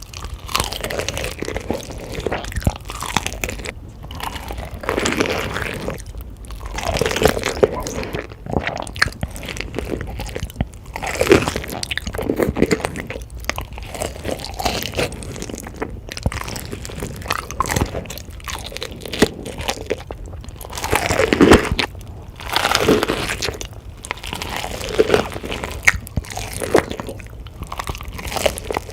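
Close-miked eating sounds: crunchy bites and chewing, coming in uneven bursts every second or so, with the loudest crunch a little past the middle.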